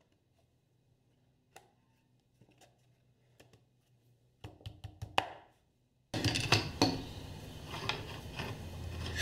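Wooden taps and knocks as the parts of a box-jointed wooden box are handled and fitted together during glue-up. A few faint clicks come first, then heavier knocks, and from about six seconds in a louder, busier run of knocking and handling.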